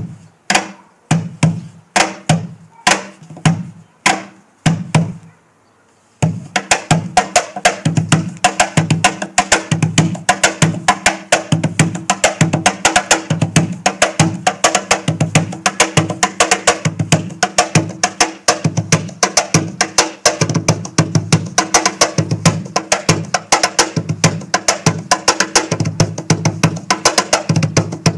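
Peruvian cajón with a laurel and canela negra body and a solid cedar front panel, played by hand: spaced single strokes at first, then from about six seconds in a fast, steady groove of deep bass tones and sharp slaps.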